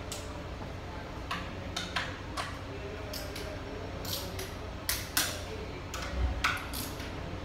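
Hand tools and metal parts clicking and tapping on top of an automatic transaxle case as the transmission control module (TCM) is fitted. About a dozen sharp, uneven clicks, more of them near the end, over a steady low shop hum.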